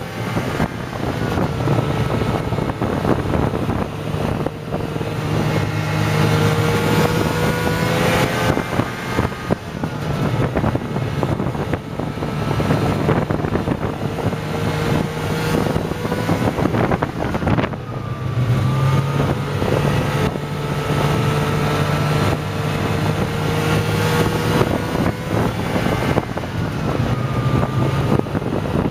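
Snowmobile engine running at trail speed. Its note slowly climbs and drops back several times as the throttle changes.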